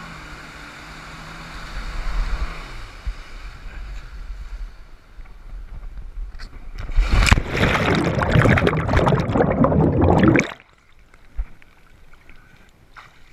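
Jet ski engine idling, its pitch dropping about three seconds in. Later comes a loud rush of splashing water and wind on the microphone for about three and a half seconds, as the camera swings on the rope and drops to the water, and it cuts off suddenly.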